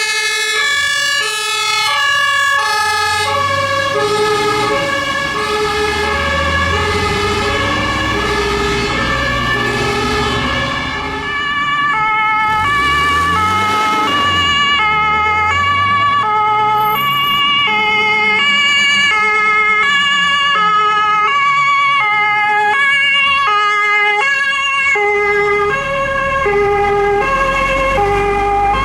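Two-tone sirens of several fire engines sounding at once, each alternating between its two pitches and out of step with the others, over the low running of the trucks' engines.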